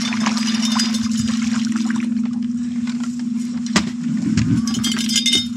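Boat's outboard motor running steadily at trolling speed, a constant hum, with one sharp knock a little under four seconds in.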